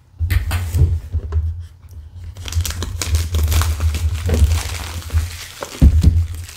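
Clear plastic shrink wrap being torn and crinkled off a cardboard board-game box by hand, with dull handling knocks against the box and table; the loudest knocks come shortly before the end.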